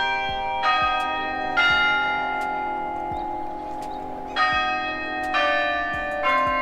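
Bells struck one note at a time, five strokes at different pitches about a second apart with a pause of nearly three seconds in the middle, each note ringing on under the next.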